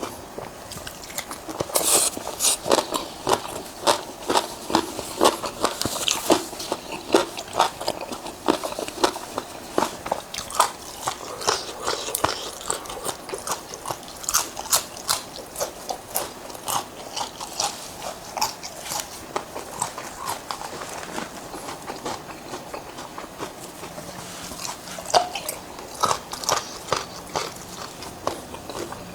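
A person eating close to the microphone: crisp crunching bites and chewing in a quick, irregular run, thinning out somewhat in the second half.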